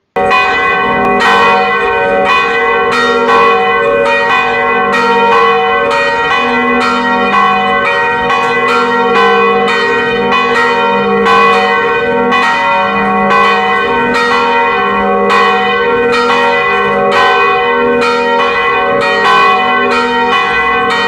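A peal of church bells hung in an open metal-frame tower, several bells struck in turn at about two strokes a second. Each stroke's ringing tones carry on and overlap the next.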